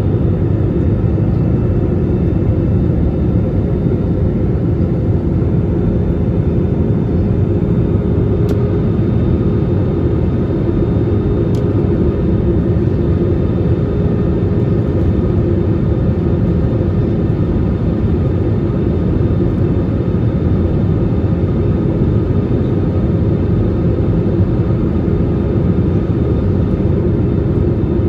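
Jet airliner in flight heard from inside the cabin beside the wing: a steady deep rumble of engine and air noise with a faint constant hum over it.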